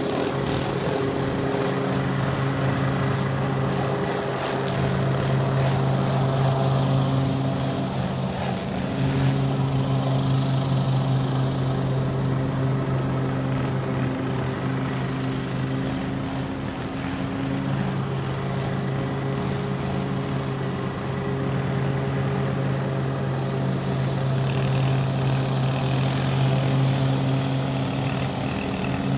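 Small engines of lawn equipment running steadily, a walk-behind lawn mower together with a string trimmer, making one continuous drone.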